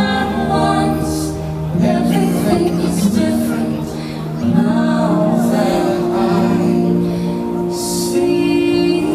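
Fireworks show soundtrack: music with long held chords and singing.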